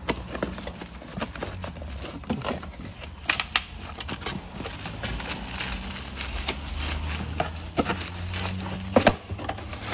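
A sound-deadening kit's packaging being opened and searched through: rustling and crinkling with irregular clicks, and a sharper knock about nine seconds in.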